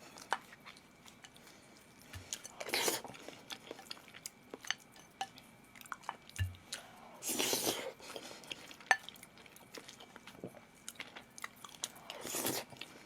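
A person chewing food close to the microphone: many small wet mouth clicks, with three longer rushes of noise spaced about four to five seconds apart.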